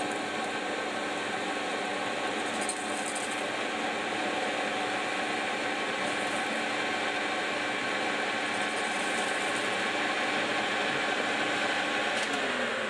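Manual lathe running with a small brass nut spinning in a miniature chuck while a tungsten carbide tool faces it off, giving a steady machine hum and whine. Near the end the spindle is switched off and the hum falls in pitch as it winds down.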